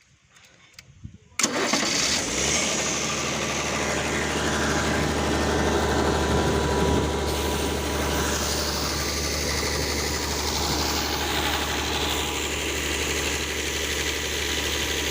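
Large air compressor for flushing a deep well starting up suddenly about a second and a half in, then running loudly and steadily with a low hum under a dense rushing noise.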